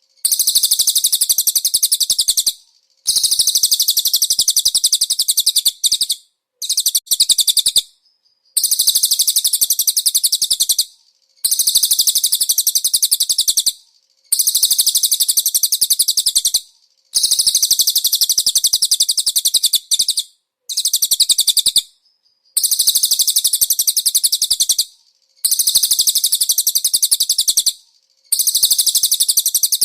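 Cililin bird singing: a long series of very high, rapid trilled phrases, each lasting two to three seconds, separated by short pauses.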